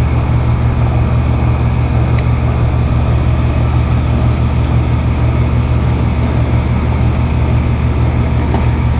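3-ton air-conditioning condenser running, its compressor and condenser fan making a steady low hum.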